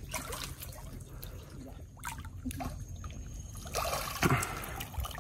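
Shallow creek water trickling and dripping as someone moves through it groping by hand for freshwater prawns, with a louder splash about four seconds in.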